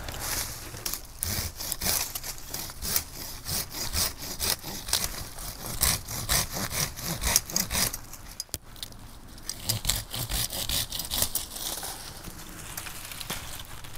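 A Silky folding hand saw with large teeth cutting through a small dead tree of soft wood, in quick, even back-and-forth strokes. The strokes pause briefly just past the middle, then resume and thin out near the end.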